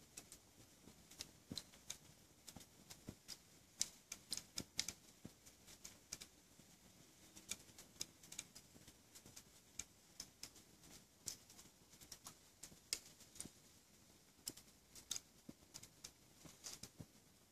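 Dry timber fire crackling: irregular sharp snaps and pops, sometimes several a second, over a faint background.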